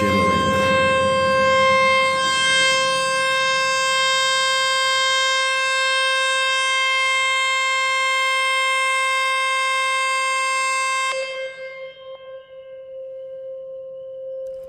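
A 528 Hz tone played from a phone's tone-generator app through its small speaker: one steady, unchanging pitch, harsh with many overtones, that starts suddenly. About eleven seconds in it drops in loudness and becomes a purer, softer tone.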